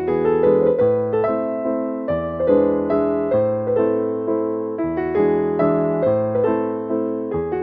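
Background music: a gentle electric piano melody, notes struck about twice a second and left to ring.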